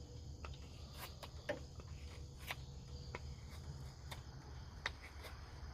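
Faint, irregular clicks and scrapes of a Rough Rider Half Hawk pocket knife blade shaving a wooden stick, with crickets chirring steadily and faintly behind.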